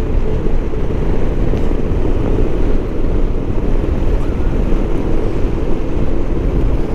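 Motorcycle engine running at a steady cruising pace, with a low, even rush of wind and road noise.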